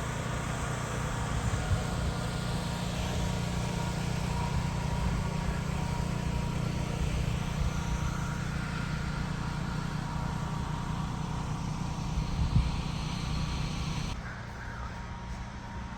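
Steady rumble of a car on the move, engine and road noise, which cuts abruptly to a quieter, thinner hum about fourteen seconds in.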